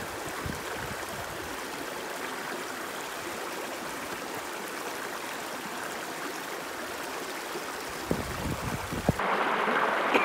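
Shallow stream flowing over rocks, a steady rushing and trickling of water. About eight seconds in come a few short low thumps, and soon after the rushing suddenly becomes louder and brighter.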